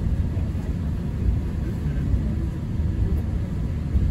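Steady low rumble inside a vehicle in motion, with no distinct events standing out.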